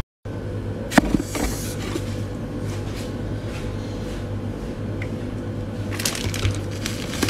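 Chili oil poured from a glass bowl over a plate of whole cooked octopus, over a steady low hum. There is a sharp click about a second in and a run of light clicks and crackles near the end.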